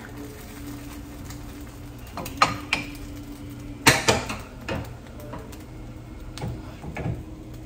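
A few sharp knocks and clicks of objects being handled and set down, the loudest cluster about four seconds in, over a steady low hum.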